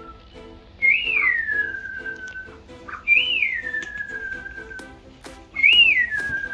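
Ostrich chicks' whistling calls, three in a row about two seconds apart: each rises quickly, then falls into a long, drawn-out whistle. Soft background music and a few sharp clicks sit under them.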